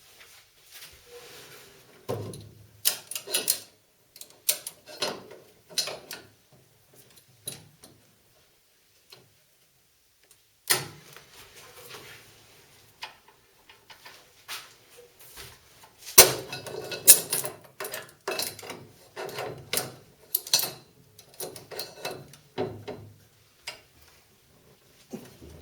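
Irregular knocks and clanks of workshop metalwork, with short scraping bursts; the busiest clatter comes about two-thirds of the way through.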